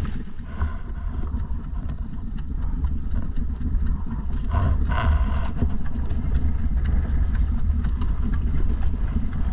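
Fishing boat's engine running steadily with a low drone, with scattered small clicks and knocks over it.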